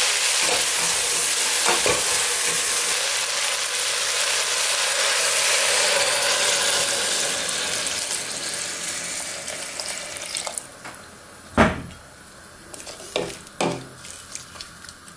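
Meat broth poured into a hot pot of frying bacon, onions and vegetables, sizzling and hissing as it hits the pan. The hiss dies away about ten seconds in, and a few sharp knocks follow.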